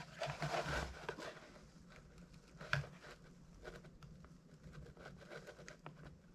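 Quiet handling noise of a hand-held wire stripper working thin red and black hookup wires: soft rustling in the first second, a sharper click about two and a half seconds in, then scattered light ticks.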